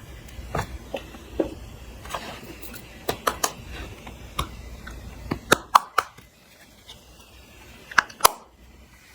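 Clear slime being worked by hand, with irregular sticky clicks and pops: a pair close together about five and a half seconds in and another pair near the end.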